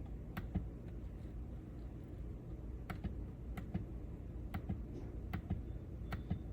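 About a dozen sharp clicks, several in quick pairs, at irregular intervals over a low steady hum.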